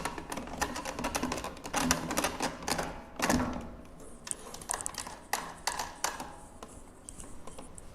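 Quick clicking and rattling of a plastic ABS burger press being handled and fitted onto a meat grinder. The clicks are dense for the first few seconds, then come more sparsely.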